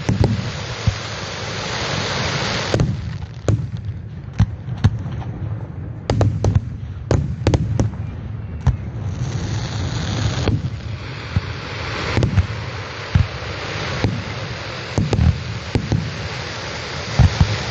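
Fireworks going off: irregular sharp bangs, several a second at times, with long stretches of dense hiss between them.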